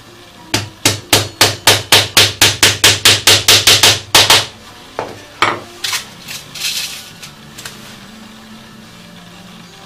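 Small hammer tapping a fretsaw-cut 2 mm brass motif laid on a wooden board: a quick run of about eighteen strikes, about five a second, then a few scattered lighter knocks.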